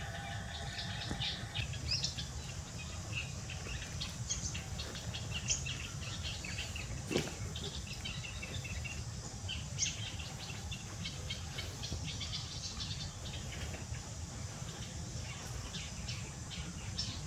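Small birds chirping on and off over a low steady hum, with one sharp click about seven seconds in.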